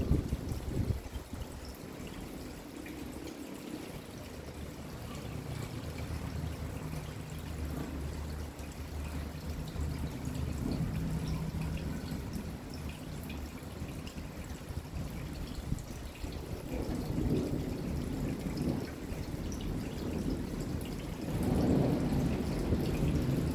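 Rain falling with dripping and trickling water, over a low rumble of distant thunder that swells twice in the second half.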